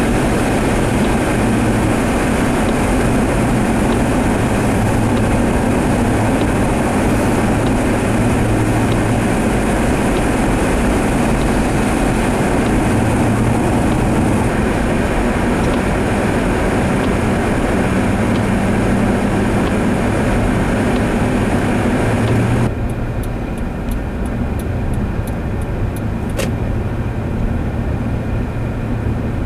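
Steady road and engine noise heard inside a car driving on a snow-covered highway, with a low hum under it. About three-quarters of the way through it cuts off abruptly to a quieter steady rumble with a few light clicks.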